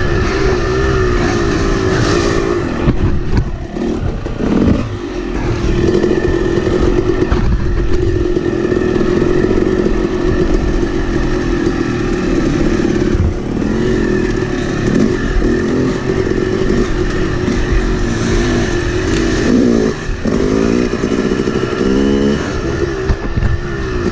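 Yamaha YZ250X two-stroke dirt bike engine running hard under throttle, heard close up from the rider's seat. The revs hold steady through the middle, with several quick rises and drops in pitch near the end as the throttle is worked.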